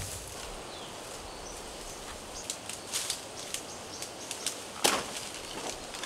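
A large banana leaf being cut and pulled from the plant: light crackles and leaf rustling, then one sharp snap about five seconds in as the leaf comes free.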